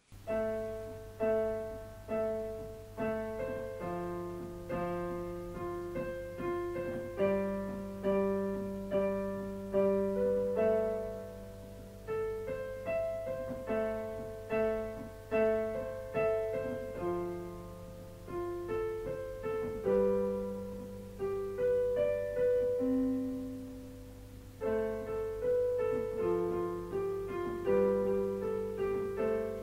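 Solo piano playing a slow, gentle tune, its notes struck and left to fade one after another, over a steady low hum.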